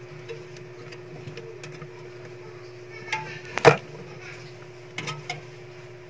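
Small clicks and taps from multimeter test leads being handled and clipped against a refrigerator's evaporator coil while the defrost heater's resistance is measured. There is a faint steady hum underneath, and the loudest single sharp knock comes a little past halfway.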